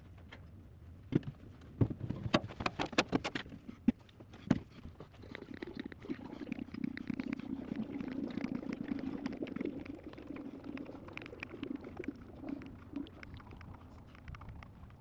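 A run of sharp clicks and knocks in the first few seconds, then hydraulic fluid pouring steadily from a container into the Cat 312 excavator's hydraulic tank, tailing off near the end.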